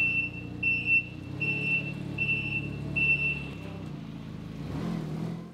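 City Ranger 3070 tool carrier's engine running steadily while a high warning beeper sounds about five times at an even pace, typical of a reversing alarm. The beeping stops about three and a half seconds in, and the engine sound fades out near the end.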